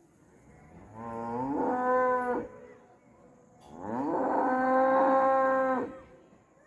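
A cow mooing twice in two long calls. Each starts low, rises in pitch and is then held, and the second is longer and louder.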